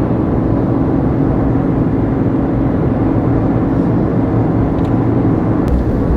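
Steady wind and road rumble heard near the roof inside a Suzuki Jimny cruising at about 90 km/h, with a steady low hum that fades near the end. There is no extra whistle or howl from the roof rack, whose bars have been wrapped to break up the wind.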